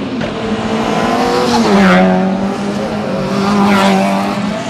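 Engine of a sub-1800 cc racing hatchback revving through a cone slalom, its pitch shifting as the driver works the throttle. The engine note swells loud twice, about two and four seconds in.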